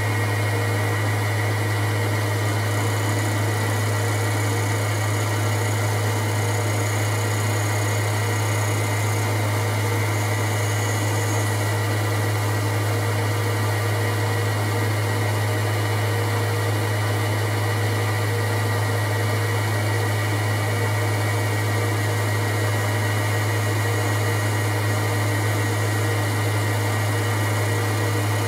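Boxford metal-turning lathe running at a steady speed: an even, loud electric-motor hum with a steady high whine above it, while the tool takes a light finishing cut on an aluminium part.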